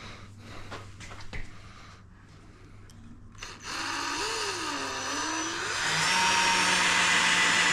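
A power drill runs after a few quiet seconds of small clicks, starting about halfway through; its motor pitch wavers, then holds steady and a little louder for the last couple of seconds.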